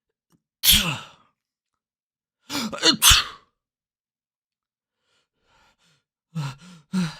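A series of separate human sneezes with dead silence between them: one sharp sneeze about a second in, a quick double sneeze around three seconds in, then faint breaths and two short voiced gasps near the end as another sneeze builds.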